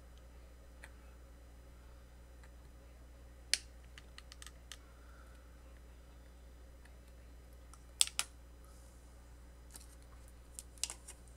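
Scattered short, sharp clicks and taps from a small brushed drone motor being handled in the fingers, loudest a quick double click about eight seconds in, over a low steady hum.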